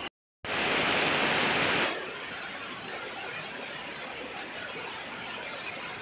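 Heavy rain falling on garden plants, wet soil and a glazed water jar: a steady hiss. It drops out for a moment just after the start, comes back louder for about a second and a half, then settles to an even level.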